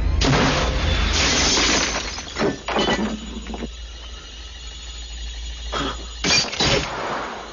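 Film sound effects of a shootout: glass shattering in a long, loud burst, followed by sharp bangs. Then a quieter few seconds, and two more sharp bangs a little after six seconds in.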